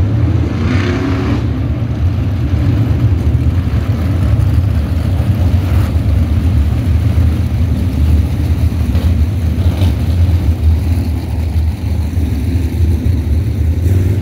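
A pack of winged sprint cars runs slowly past behind a pace truck under caution. Their V8 engines give a steady, heavy low rumble at part throttle rather than full-speed racing revs.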